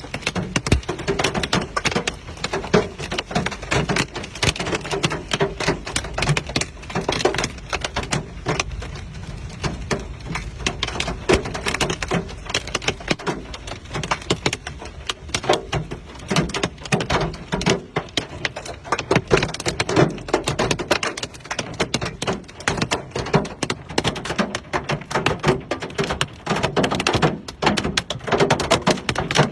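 Hailstones hammering on hard surfaces in a dense, irregular clatter of many small impacts, unbroken throughout.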